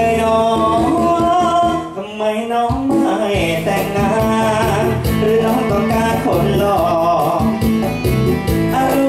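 Upbeat luk thung (Thai country) song music with a steady beat, briefly dropping in level about two seconds in.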